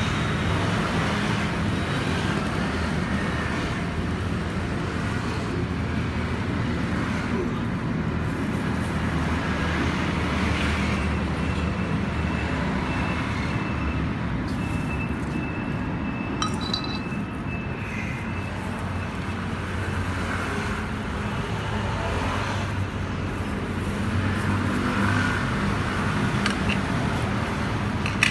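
Steady low drone of road traffic, with a faint high tone for a few seconds near the middle.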